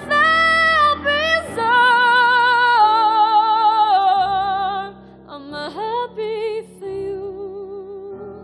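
A woman singing a wordless passage of long, high held notes with vibrato, sliding between pitches. About halfway through the voice drops lower and softer.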